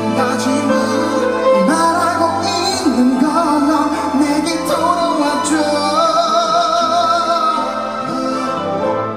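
Live concert music: a slow Korean pop ballad played by the band, with sung melody over sustained chords.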